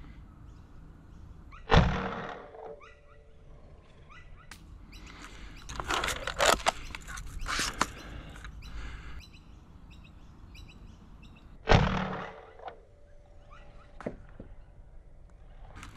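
Sabre M20S spring-powered foam dart blaster, with its heavy 26 kg spring, firing twice about ten seconds apart: each shot a sharp thunk with a brief ringing tone after it. Between the shots, a rattling clatter of the blaster being primed for the next dart.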